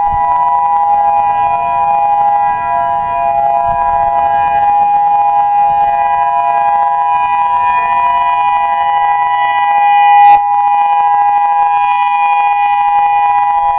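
EOWS-612 electronic outdoor warning siren sounding a steady multi-tone alert for a tornado siren test, the pitch holding level with no wail. A short knock about ten seconds in.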